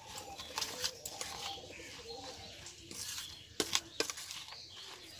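Steel spoon clinking and scraping against a stainless steel bowl at an irregular pace while eggs are beaten into chopped onion and chilli; the sharpest pair of clinks comes about three and a half seconds in. A bird coos faintly in the background.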